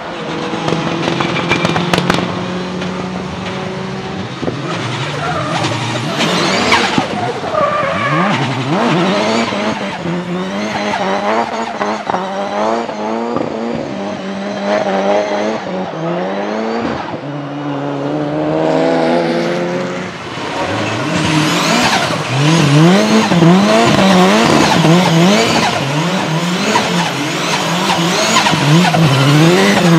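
Nissan 200SX S13 drift car's turbocharged engine revving hard up and down as it slides, with tyres squealing. A few sharp pops come about two seconds in, and the revs swing up and down quickly in the last third.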